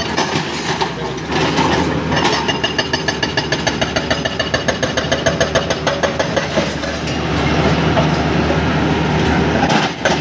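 An excavator's hydraulic rock breaker hammers hard black rock in rapid, even blows, about five a second, over the excavator's running diesel engine. The rock is not breaking easily, and both machine and breaker are struggling with it. The blows give way to steadier engine noise in the last few seconds.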